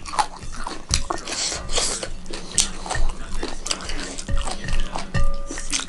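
Close-up eating sounds: chewing and lip-smacking over a mouthful of rice and daal eaten by hand, with many short wet clicks, and fingers working the food on the plate.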